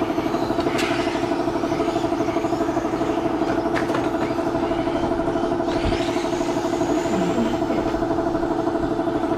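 A steady mechanical drone with a fast pulsing flutter, like a small engine running at an even speed, continuing without change.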